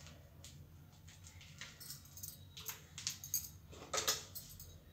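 Scattered light metallic clinks of a spoon against steel kitchen utensils as spices are measured into a steel mixing bowl, the loudest about four seconds in, over a low steady hum.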